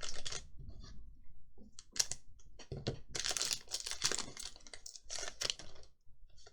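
Foil booster pack wrapper crinkling and tearing as it is opened and handled, in a run of irregular rustling bursts, busiest about three to four and a half seconds in.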